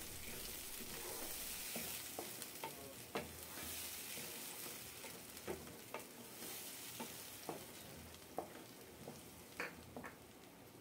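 Onion, ginger-garlic and green chilli paste sizzling softly in oil over a medium flame, stirred with a wooden spatula that clicks and scrapes against the pan every so often. The sizzle grows fainter toward the end.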